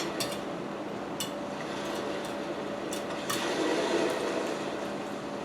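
Eating utensils clinking against a plate: several short, sharp clicks spread across the few seconds. A steady background hum runs underneath.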